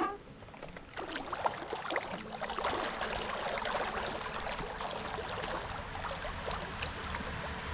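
Water splashing and crackling as a small hooked crappie thrashes at the surface while being reeled in. The splashing starts about a second in and keeps going, then cuts off suddenly just after the end, as the fish is lifted out of the water.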